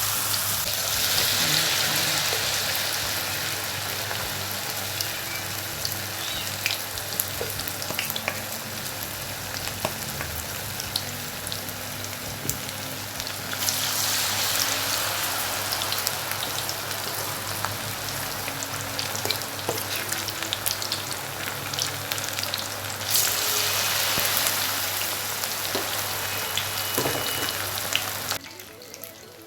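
Potato and onion pakoras in gram-flour batter deep-frying in hot oil in a kadhai: steady sizzling with scattered crackles. It grows louder about 14 seconds in and again about 23 seconds in, then drops off sharply near the end.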